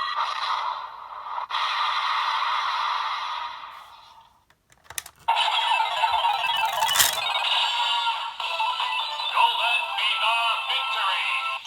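Electronic jingle and sound effects from the DX Fever Slot Raise Buckle toy's small speaker. The first passage fades out about four seconds in, followed by a click, then a new busy slot-machine-style jingle starts up and runs on, with a sharp mechanical click from the toy about two seconds later.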